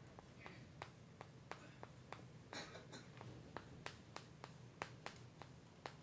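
Chalk writing on a chalkboard: faint, sharp, irregular taps as each stroke lands and lifts, with a longer scrape about two and a half seconds in.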